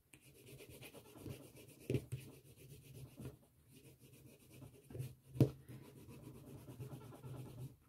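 Caran d'Ache wax pastel being rubbed back and forth on paper: a faint, continuous scratchy rubbing, with a couple of louder strokes about two seconds and five and a half seconds in.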